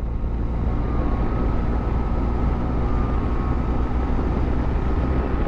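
Steady wind rush and low rumble of a motorcycle on the move.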